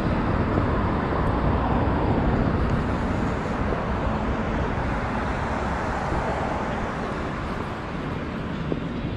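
Steady city street traffic noise, cars running through a busy intersection, with an even background hum.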